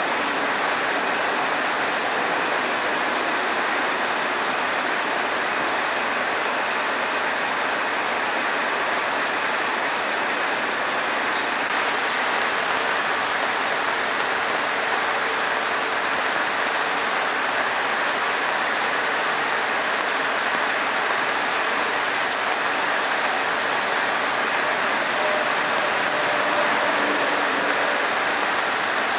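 Heavy rain pouring steadily on wet pavement and leaves, an even, unbroken hiss.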